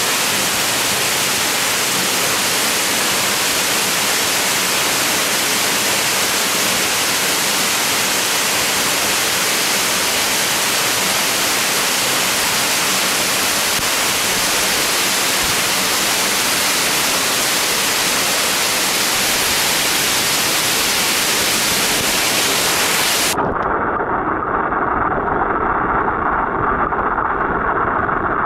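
Waterfall rushing: a loud, steady hiss of falling water. About 23 seconds in it cuts sharply to the duller, muffled rumble of water heard from under the surface.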